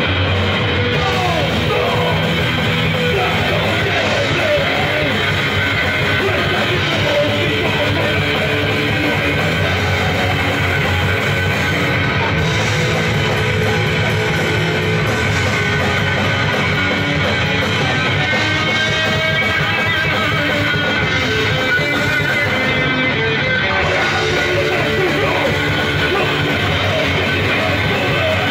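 Rock band playing live, loud and steady, with electric guitar over bass and drums.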